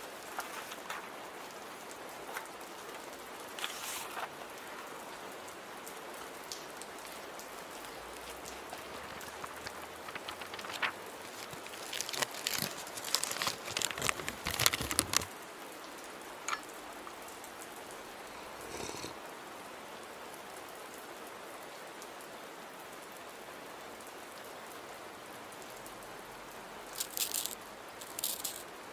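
Steady rain, with a few brief rustles and clicks from the desk: a cluster about twelve to fifteen seconds in and more near the end.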